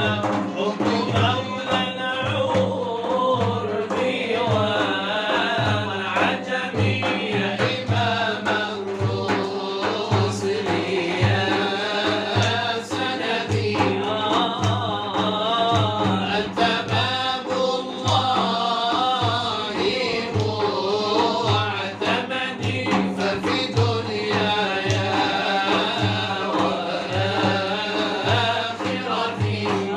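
Arabic devotional inshad: a man's voice chanting long, wavering melismatic lines over a steady low drone and an even hand-drum beat.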